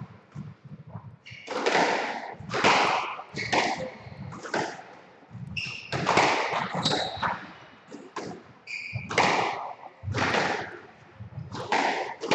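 Squash rally: the ball is struck by rackets and hits the walls about once a second, each hit echoing around the enclosed court. Short, high squeaks of court shoes on the wooden floor come in between.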